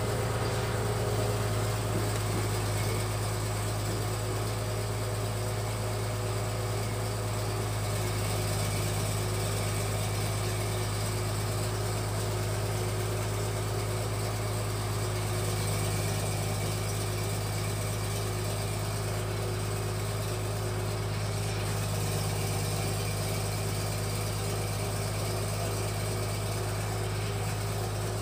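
Fish-feed pellet machine running steadily under load as its die extrudes strands of pellets, with an even, unchanging low hum.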